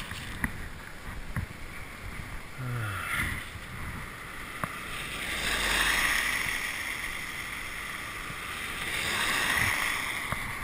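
Vehicles passing on a snow-covered road, their tyre noise swelling and fading twice, loudest about six seconds in.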